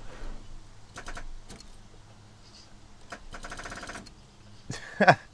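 Subaru WRX STI's starter solenoid clicking as the key is turned, with no cranking: a few single clicks, then a fast run of clicking lasting under a second. This is the sign of a completely dead battery. Near the end there is a short, louder falling sound.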